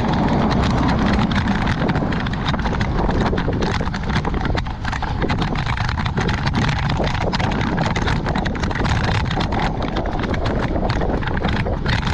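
Wind buffeting an action camera's microphone on a moving bicycle, a steady low rumble, over a rapid, irregular clatter of clicks.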